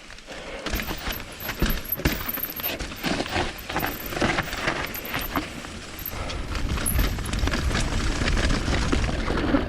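Mountain bike rolling over a dirt trail: many small clicks and rattles from the bike over the bumps, with a low rumble that grows louder in the second half.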